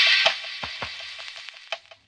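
Short electronic intro jingle for a channel logo: a bright swell with sharp clicking percussive hits, fading out near the end.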